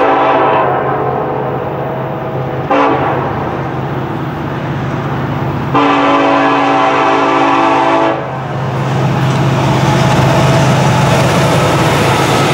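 Norfolk Southern diesel locomotive's air horn sounding the grade-crossing signal: a long blast ending about half a second in, a short toot near three seconds, and another long blast from about six to eight seconds. After the horn the locomotives' diesel engines and wheels on the rail grow louder as the lead units pass close by.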